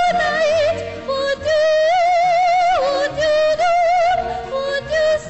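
A female soprano singing a musical-theatre song in long held notes with wide vibrato, over a quieter orchestral accompaniment.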